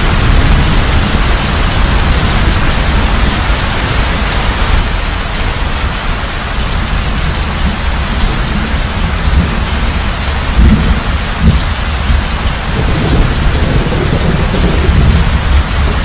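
Steady rain with low rumbling thunder underneath; the thunder swells about ten seconds in and again near the end.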